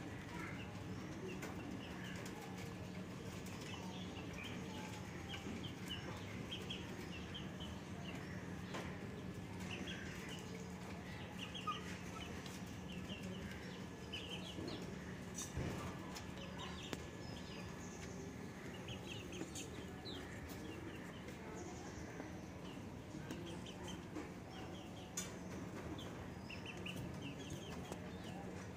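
Small birds chirping in short, repeated clusters of high chirps, over a steady low hum with a few sharp clicks.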